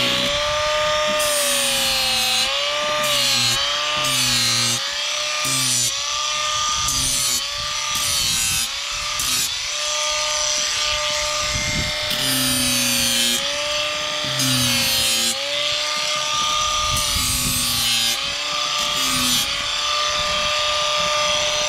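A motor-driven machine running steadily with a whine that wavers slightly in pitch, a lower note cutting in and out every second or so, and the pitch falling away as it winds down at the very end.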